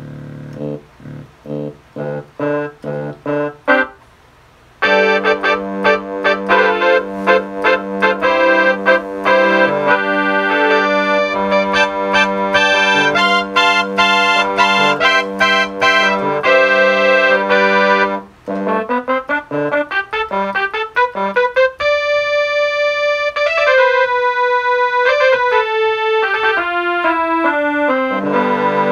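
A Casio CTK-240 portable electronic keyboard is played. A short run of detached notes comes first, then a brief pause. A held low note follows with quick notes played over it, and after that a slower line of sustained notes steps downward.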